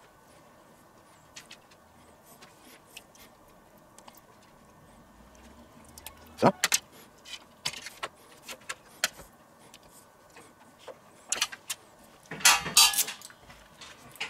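Metal spoon clinking and scraping against a stainless-steel serving platter as burger patties are lifted off onto buns, with scattered sharp clicks of tableware on plates. A quick run of louder clinks comes near the end.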